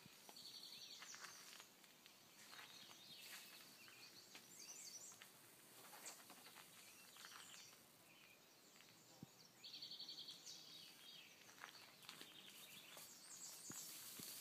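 Quiet woodland with faint songbirds calling. A short buzzy trill comes near the start and again about ten seconds in, among scattered chirps.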